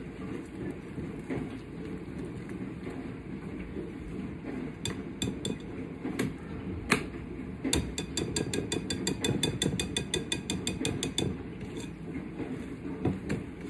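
A mixing spoon clacking against a bowl as cornbread batter is beaten by hand: a few scattered knocks, then a quick even run of about nine clicks a second for some three seconds past the middle. Under it is the steady watery wash of a running dishwasher.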